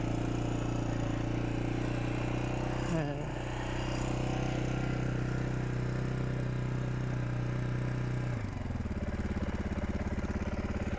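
1999 Suzuki DR350's single-cylinder four-stroke engine, just kick-started on choke, running steadily at a raised idle. About eight seconds in, its speed drops quickly to a lower, steady idle with evenly spaced firing pulses.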